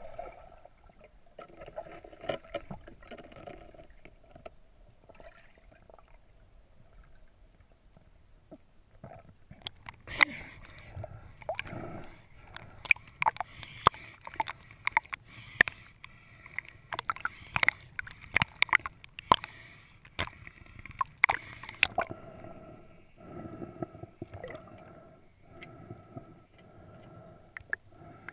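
Muffled underwater sound picked up through a GoPro housing, with a dense run of sharp clicks and knocks from about ten seconds in that stops about twenty-two seconds in.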